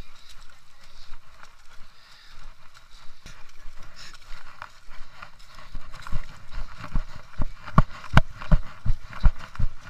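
Running footsteps on a dirt trail, heard through a handheld camera as regular thumps about three a second, starting about six seconds in; before that only quieter, scattered sounds.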